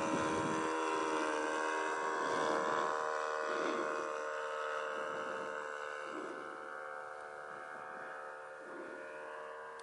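Pilatus PC-21 turboprop trainer flying overhead: the steady whine of its engine and propeller, several tones held together, slowly fading as the aircraft draws away.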